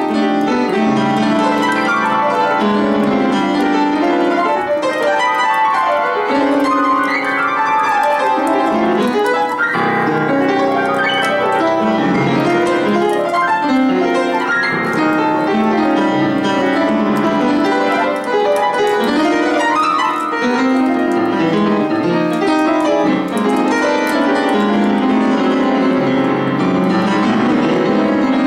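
Out-of-tune white Yamaha piano played in a dense, continuous solo improvisation, with many notes and chords in the middle of the keyboard and no pauses.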